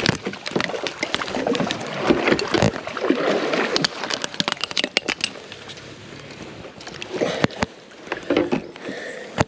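Water splashing and sloshing around a kayak, with many sharp knocks on the hull, during a fight with a hooked peacock bass. The knocks come most densely about four to five seconds in.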